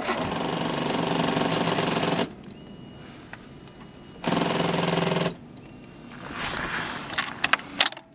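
Honda GL1800 Gold Wing's starter system clattering rapidly for about two seconds, then again for about a second after a pause, on a worn-out five-year-old battery too weak to crank the engine. A few sharp clicks follow near the end.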